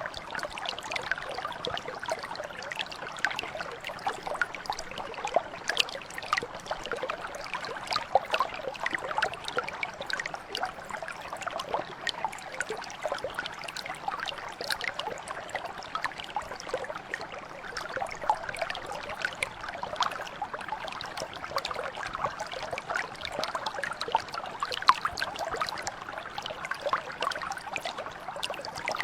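Shallow mountain brook flowing over stones, a steady babble of many small trickles and splashes.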